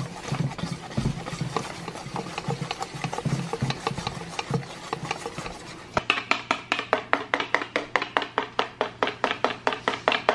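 Hand wire whisk beating a whipped coffee mixture in a stainless steel bowl, the wires scraping and clicking against the metal. The strokes are irregular at first, then from about six seconds in become fast and even, about six a second.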